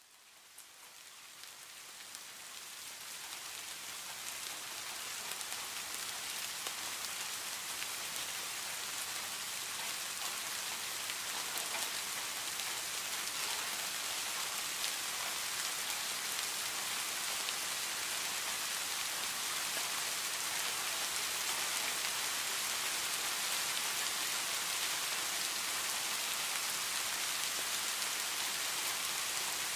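Steady rain falling on leaves and plants, an even hiss of many drops. It fades in from near silence over the first few seconds, then holds level.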